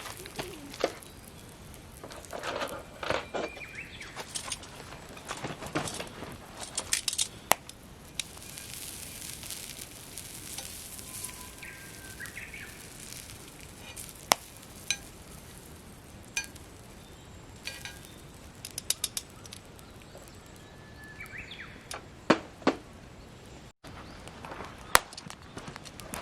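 Campfire crackling with irregular sharp pops, over a steady hiss of meat sizzling on the fire.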